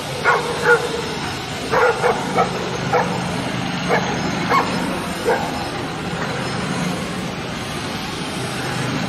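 A pack of street dogs barking in short, scattered barks at a leashed police dog, over a steady hum of street traffic. The barking dies out a little past halfway, leaving only the traffic.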